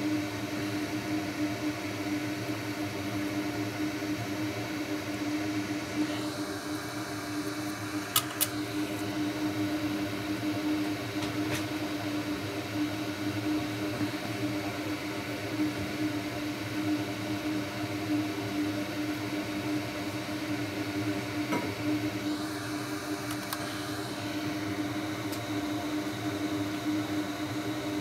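Solder fume extractor fan running steadily, a loud constant drone with a hum tone in it. A couple of sharp clicks about eight seconds in.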